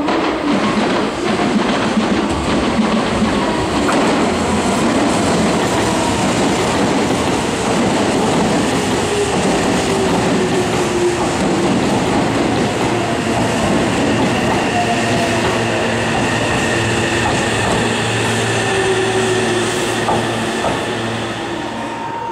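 Meitetsu 2200-series electric multiple unit running through the station, with wheel-on-rail rumble and clatter. Its motor whine falls in pitch several times, and a steady higher whine comes in during the second half.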